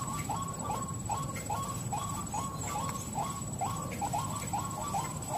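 White-breasted waterhen giving its monotonous 'kru-ak' call over and over, about two to three short hooked notes a second at an even pace.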